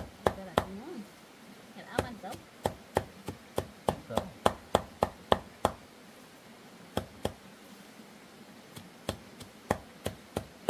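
Steady chopping: a blade striking down on wood about three times a second, with two short pauses in the middle.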